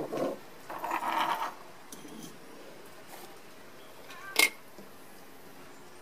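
Metal parts of a cut-open oil filter being handled on a wooden tabletop: a short knock, a scraping rustle about a second in, and a sharp metal clink with a brief ring about four seconds in.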